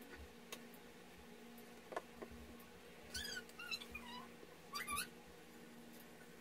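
A small animal's short, high-pitched squeaky calls, each bending up and down in pitch. A cluster comes about three seconds in and a pair about five seconds in, over a faint steady hum.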